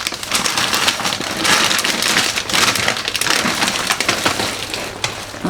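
Packaging crinkling and rustling loudly as a set of drinking glasses is handled and unwrapped, a dense run of small crackles.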